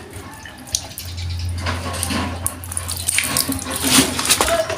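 Water running into a water pump's suction pipe as it is filled to prime a pump that runs but will not draw water. A steady low hum sets in about a second in.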